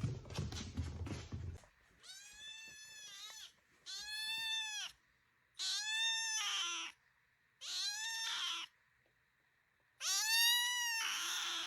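A domestic cat meowing five times, each meow about a second long and rising then falling in pitch. It follows a second or so of rustling and knocking.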